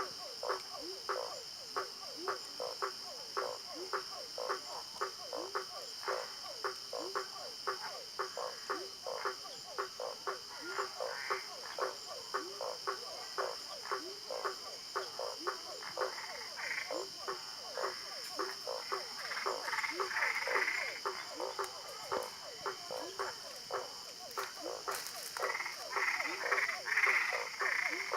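Frogs croaking: short calls that fall in pitch, repeated in a steady rhythm about two to three a second, with denser, brighter calling about two-thirds of the way in and again near the end. A steady high-pitched tone runs beneath them.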